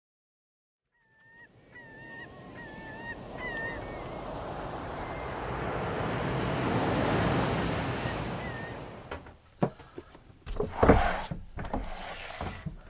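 A few short honking bird calls over a rush of surf that swells and fades, then a string of wooden knocks and thunks from the companionway hatch near the end.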